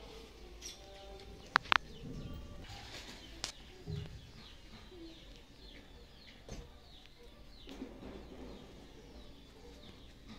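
Small birds chirping repeatedly in the background, short falling calls scattered throughout. Two sharp loud clicks come close together about a second and a half in, with fainter single clicks later.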